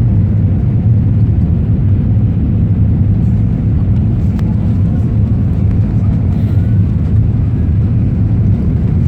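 Airliner cabin noise during landing: a steady low rumble of engines and airflow, with a faint click about four seconds in.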